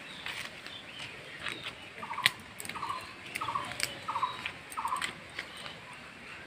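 An animal or bird calling, a short note repeated five times about two-thirds of a second apart, mixed with a few sharp snaps and leaf rustles as chillies are picked from a chilli plant.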